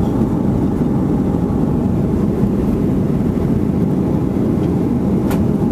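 Steady low roar of an airliner's engines and rushing air, heard inside the cabin on final approach with the flaps extended.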